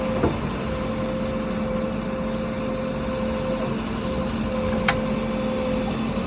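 Heavy diesel vehicle engine running steadily at a constant pitch, with a short high chirp about five seconds in.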